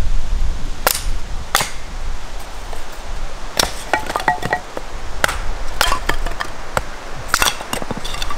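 A hatchet splitting firewood into kindling on a chopping block: a run of about a dozen sharp cracks and knocks, with a few brief ringing clinks of split wood about halfway through.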